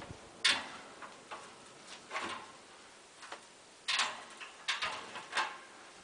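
Vintage GE two-speed metal box fan running with a soft, even air hiss, broken by several light clicks and knocks at uneven intervals, the sharpest about half a second in and about four seconds in.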